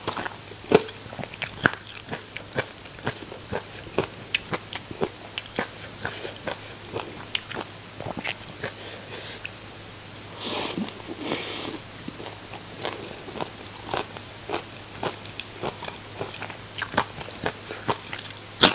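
Close-miked crunching and chewing of crispy deep-fried food: many sharp crunches a few times a second, with a longer, denser run of crunching about ten seconds in.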